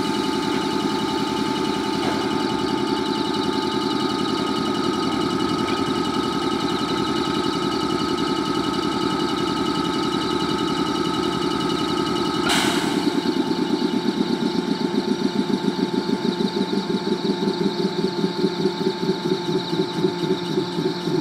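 Parked JR Kyushu 415 series electric train humming during early-morning start-up, its onboard machinery giving a steady hum with high whining tones. About twelve seconds in there is a short burst of air hiss. Then a rhythmic throbbing starts, about three beats a second and growing louder, typical of the train's air compressor starting to run.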